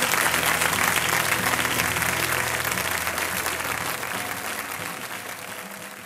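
Live concert audience applauding, a dense wash of many hands clapping that fades steadily away over the last few seconds, with a low steady tone underneath for the first few seconds.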